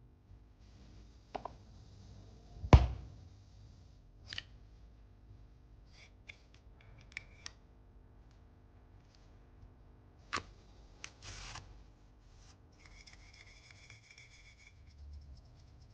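Small hand-held objects handled on a hard surface: scattered clicks and taps, a sharp knock about three seconds in, and stretches of light scraping and rubbing.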